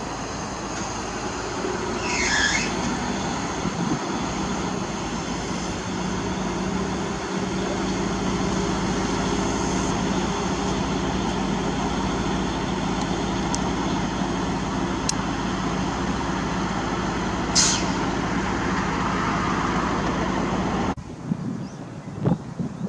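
Diesel engines of parked railway track-maintenance machines idling steadily, with two short hisses, one about two seconds in and one near the end. Near the end it cuts to quieter wind noise.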